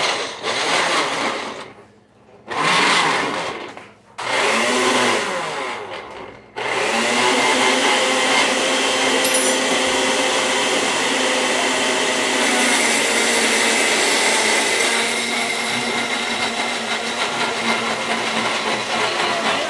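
Countertop blender grinding graham crackers. It runs in three short pulses over the first six seconds, then runs continuously.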